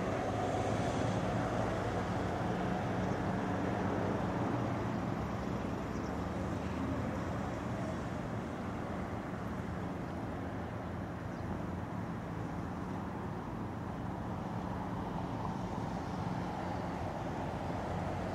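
A steady low mechanical hum over a rumbling noise.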